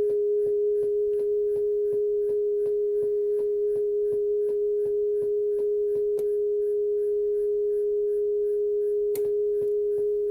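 Nakamichi 680ZX cassette deck's calibration test tone, a steady pure tone from the deck's output, broken by strange clicking about four times a second, with two louder clicks late on. The uploader links the clicking to the spinning azimuth motor and the flashing PLAY light in calibration mode with TAPE selected.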